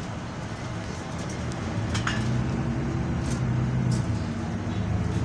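Double-decker bus's diesel engine running as the bus drives along, heard from inside on the upper deck; its low note grows louder about two seconds in as it pulls harder, with light rattles from the bodywork.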